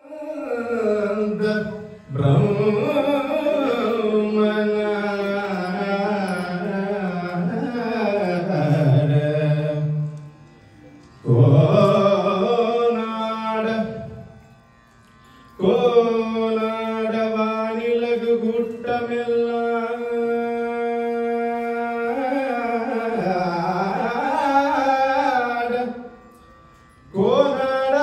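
Male voice singing Carnatic music in long melodic phrases with sliding ornaments and a long held note in the middle, broken by three short pauses.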